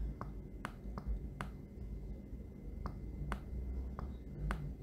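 Computer mouse button clicking in an irregular series of about ten sharp clicks as handwriting is drawn stroke by stroke with the mouse, over a low steady hum.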